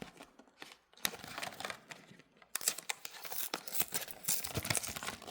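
Product packaging being opened and handled: plastic and cardboard crinkling and tearing with scattered clicks. It is sparse at first, then denser and louder from about halfway.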